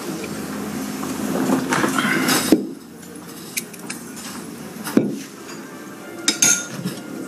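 Dishes and glasses clinking and knocking, with a loud knock about two and a half seconds in that cuts off the sound before it, then a few light clinks.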